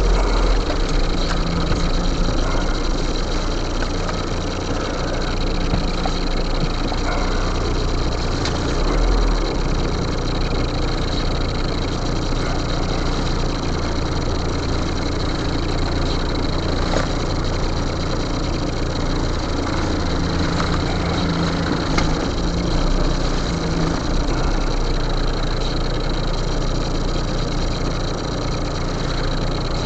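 Car engine idling and running at low revs, heard from inside the car.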